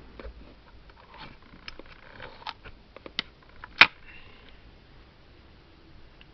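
FED 3 rangefinder camera being handled: several small mechanical clicks, then one sharp shutter click about four seconds in.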